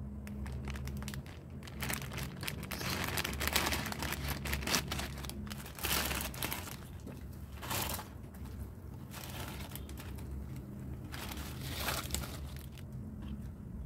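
Plastic instant-noodle packet crinkling in the hand as it is opened and tipped out over the pot, in irregular rustles with a steady low hum underneath.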